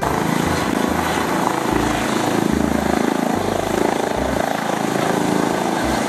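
ADAC air-rescue helicopter running on the ground with its turbine and main rotor turning, a loud, steady rotor and engine noise.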